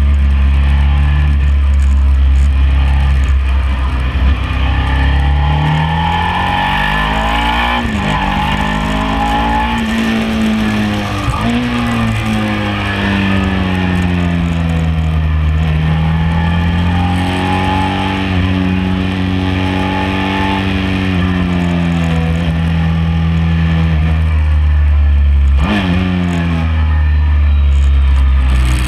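Sport motorcycle engine being ridden hard on a race track, picked up by a camera on the bike: revs climb and fall through the corners, broken by several quick gear changes, over heavy wind rush.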